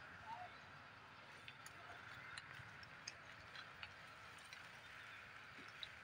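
Near silence: a faint steady outdoor hiss with a few faint scattered clicks, and a couple of faint short chirps about half a second in.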